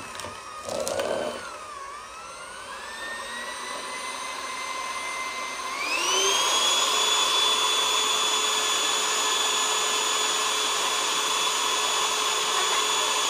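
Electric mixer motor whining as it mixes cookie dough, its pitch wavering under load, then rising to a higher steady whine about six seconds in.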